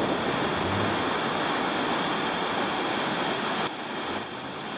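River in flood, swollen by heavy rain, with whitecaps, making a steady rushing of water. There is a short click and a slight drop in level about three-quarters of the way through.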